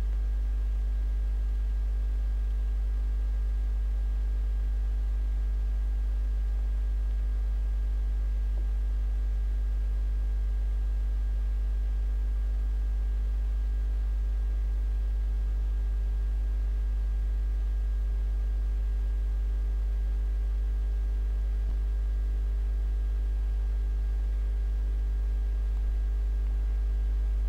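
Steady electrical hum: a strong low drone with fainter steady tones above it, unchanging throughout.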